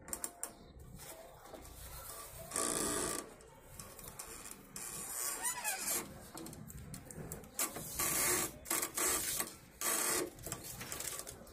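Hand screen printing: a rubber squeegee dragged across an inked silk-screen frame in several scraping strokes, each lasting up to about a second, with clicks and knocks as the hinged frame is lifted and lowered and the paper sheets are handled.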